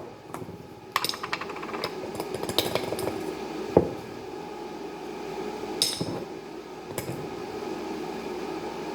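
Metal measuring spoon clinking and tapping against containers as cinnamon is spooned out: about five separate sharp clinks, the loudest a little under four seconds in, over a faint steady hum.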